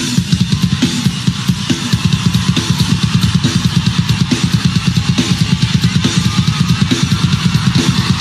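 Live band music driven by a drum kit playing a fast, even beat of bass-drum hits with cymbals.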